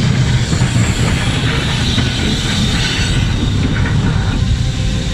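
BR Standard Class 9F steam locomotive and its train rolling slowly past, a steady rumble and clatter of wheels and running gear on the rails.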